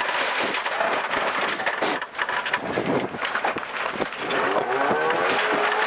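Saab 9-3 rally car at speed on a gravel stage, heard from inside the cabin: the engine revs rise and fall through the gears while gravel and stones clatter against the underbody in sharp knocks.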